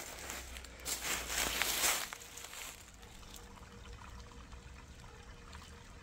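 Small woodland stream trickling softly. A louder rustling burst comes about one to two seconds in, then the trickle carries on quietly with small ticks.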